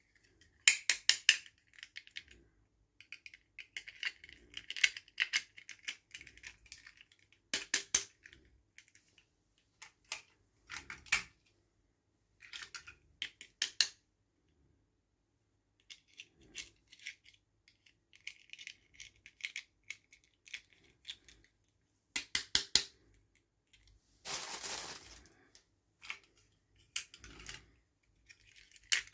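Plastic toy packaging and doll pieces handled in an unboxing: clusters of sharp clicks, rattles and crinkling with short pauses between, and a longer rustle or tear near the end.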